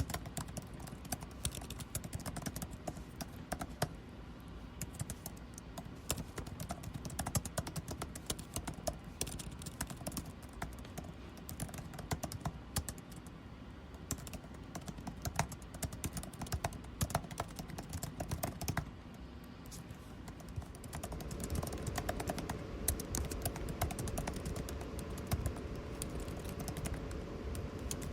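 Typing on a computer keyboard, a dense, irregular stream of key clicks, over a steady air-conditioning hum. About three-quarters of the way through the hum grows louder and picks up a faint low tone.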